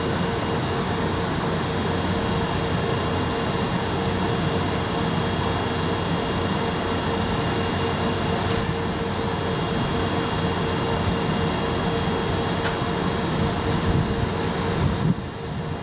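JR Freight EF64 1000-series electric locomotive standing with its equipment running: a steady whirring hum of its cooling blowers, with a constant tone, and a couple of faint ticks.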